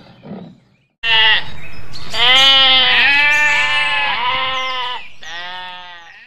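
A farm animal bleating, starting about a second in: a short bleat, a long wavering bleat of about three seconds, then a fading final bleat.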